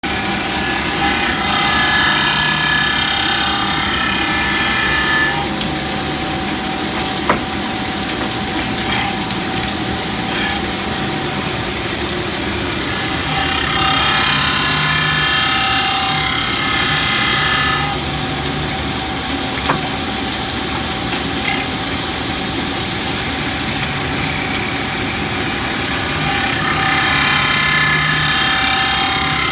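Band saw blade grinder running steadily, with a high, ringing grind that comes in stretches of about four seconds, three times, roughly every twelve seconds. A single sharp click falls between the grinding stretches, twice.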